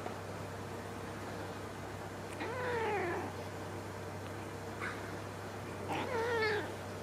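Hungry young kitten meowing twice, each meow drawn out and dropping in pitch, with a brief faint squeak between them.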